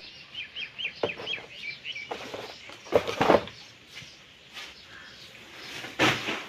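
A small bird chirping a quick run of about eight short high notes, roughly five a second, over the first two seconds. Several louder brief knocks or rustles sound about a second, two, three and six seconds in.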